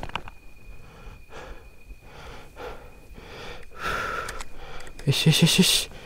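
A person breathing hard, with a run of short, voiced gasping breaths about five seconds in.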